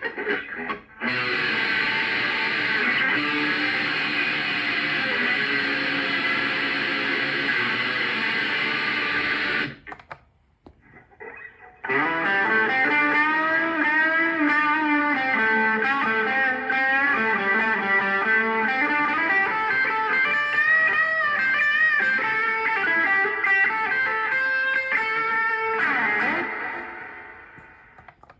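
Electric guitar played through Zoom G1X Four multi-effects pedal preset patches. A dense sustained chord sound rings for about nine seconds and stops. After a short pause a second patch plays a lead line with pitch bends, which fades out near the end.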